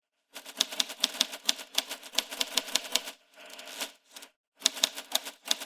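Typewriter being typed on: a rapid run of sharp key strikes, a brief pause filled by a softer continuous noise about three seconds in, then another short burst of keystrokes.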